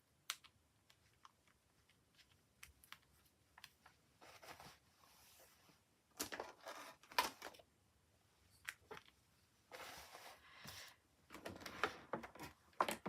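Faint handling of paper and card on a craft table: scattered light clicks and taps with several short bursts of paper rustling.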